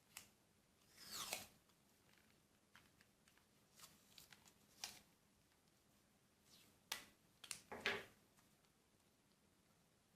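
Adhesive tape pulled off its roll and torn, faint short rasps about a second in and again near the end, with light clicks of handling in between.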